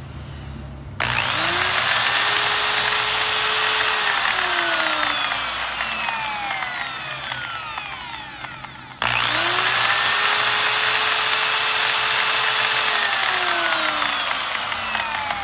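Repaired electric hand drill run twice on mains power. Each time its motor starts abruptly and whines up to speed, runs, then winds down with a falling whine; the second start comes about eight seconds after the first. The repairer puts the drill's sound down to a damaged chuck with play.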